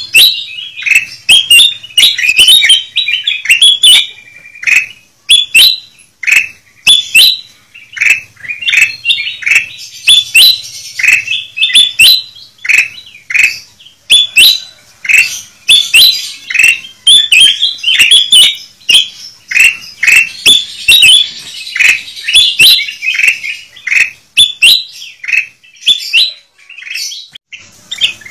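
Several kutilang emas (ruby-throated bulbuls) calling noisily: a dense, unbroken chatter of short, overlapping chirping calls, many to the second.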